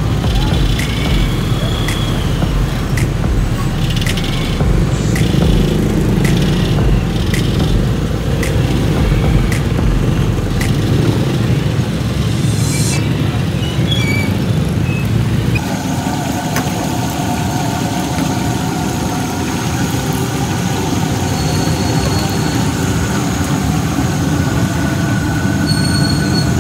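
Street traffic: motorcycles and motorized tricycles running and passing, a dense low engine rumble. About halfway through the sound changes to a steadier background hum with faint steady tones.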